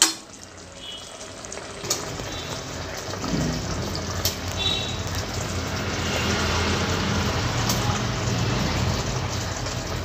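Rice and water boiling in an aluminium pressure cooker on high flame: a steady bubbling hiss that grows a little louder after about two seconds, with a few light knocks, the first right at the start.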